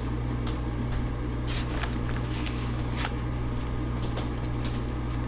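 Plastic zip-top bag of flour and cornmeal crinkling and rustling in scattered short crackles as crappie fillets are worked in it and pulled out, over a steady low electrical hum.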